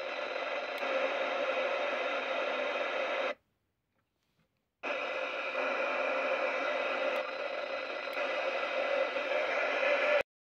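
A CB radio's speaker gives a steady hiss of static on an open FM channel. The hiss cuts out completely for about a second and a half near the middle, and again briefly near the end.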